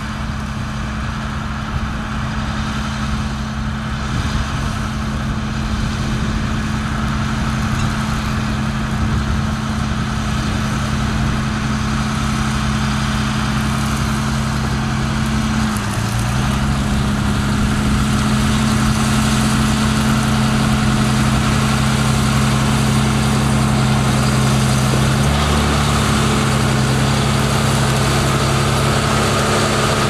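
A John Deere tractor's diesel engine pulling a plough through stubble, a steady low drone. The pitch shifts slightly about halfway through, and the drone grows louder as the tractor comes close.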